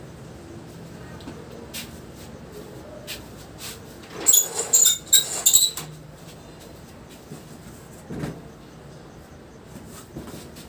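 Household things being moved by hand: a burst of rattling and scraping about four seconds in, lasting over a second, then a single dull thump about eight seconds in, with a few light knocks between.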